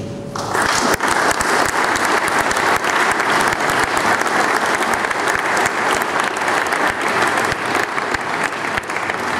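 Audience applause in a large hall, many people clapping steadily; it starts about half a second in.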